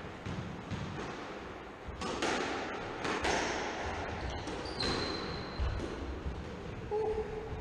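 Squash rally: the rubber ball smacking off rackets, the walls and the wooden floor of the enclosed court in a string of sharp hits about a second apart, with a couple of short shoe squeaks on the floor.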